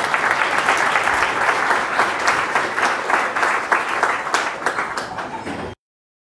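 Audience applauding, many hands clapping at once, until the sound cuts off abruptly near the end.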